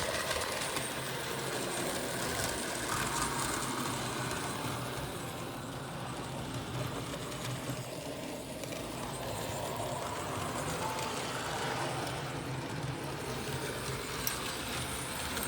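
Model Christmas village train running around its layout track: a steady electric motor whir with wheels rattling and clicking over the rails, a little softer in the middle.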